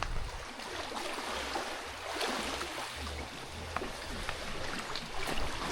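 Steady outdoor rushing noise with uneven low rumbling, the kind made by wind buffeting the microphone; no monkey howls or engine note.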